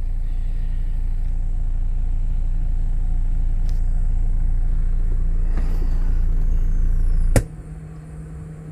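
Car-audio subwoofers playing a steady 28 Hz bass test tone for an SPL run aimed at 160 dB, heard inside the sealed-up cabin. The tone slowly gets louder, then cuts off suddenly with a click about seven seconds in.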